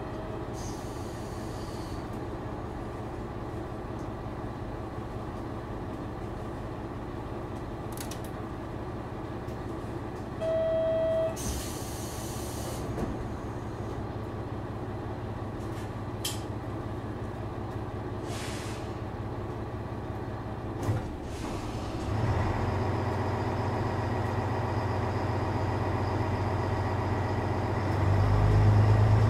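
JR Shikoku 1000 series diesel railcar's engine idling, with a short steady beep about ten seconds in, followed at once by a burst of air hiss, and a few other brief hisses. About two-thirds of the way through, the engine speeds up and gets louder, and it rises again near the end.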